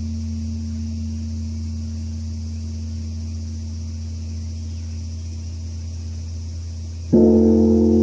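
Korean temple bronze bell (beomjong) humming deeply as the previous stroke slowly dies away. It is struck again with its wooden log striker about seven seconds in, a sudden loud ring with many tones.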